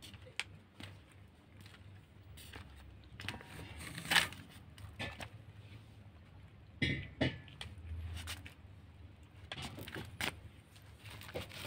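Kittens eating food off a flattened plastic food pouch: irregular small clicks, crinkles and chewing, with a small collar bell jingling now and then.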